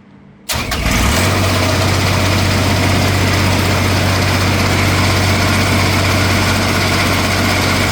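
Crary Bearcat CH611DH wood chipper's diesel engine starting after glow-plug preheating: about half a second in it cranks briefly and catches almost at once, then runs steadily at idle.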